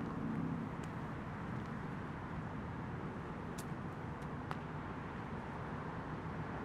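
Steady city background: a distant traffic hum with a low drone underneath, and a couple of faint clicks near the middle.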